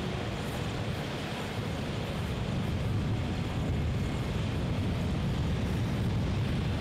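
Steady low outdoor rumble with a fainter hiss above it, even throughout, with no distinct knocks or engine tones.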